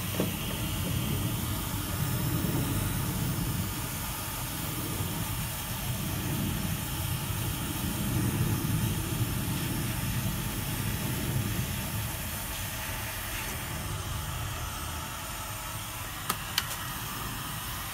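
2000 W electric heat gun running, its fan blowing a steady rush of hot air onto paint to soften it for scraping. Two sharp clicks near the end.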